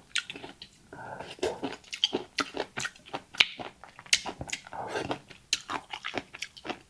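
Close-miked eating of rice noodles: chewing and slurping, with a quick, irregular run of sharp wet mouth clicks.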